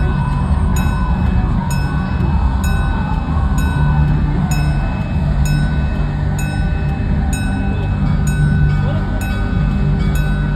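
Small steam locomotive drawing near at low speed, its bell ringing steadily, about one stroke every three-quarters of a second, over a low rumble from the engine and wheels.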